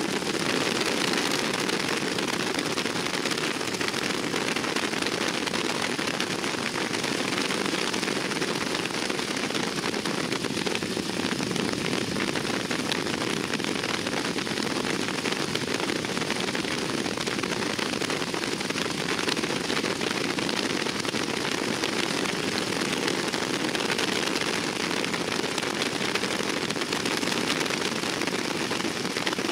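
Steady, even rush of wind and radial-engine noise heard from aboard a GEICO Skytypers SNJ-2 trainer in flight.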